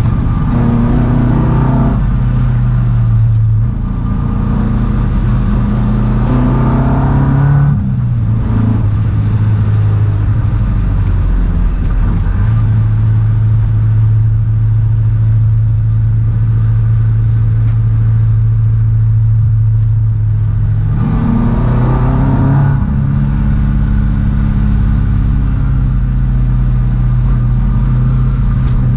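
Ford Escort Mk1's four-cylinder engine heard from inside the cabin while driving. The revs climb over the first few seconds and again about three-quarters of the way through, dropping back each time, with a long stretch at steady revs in between.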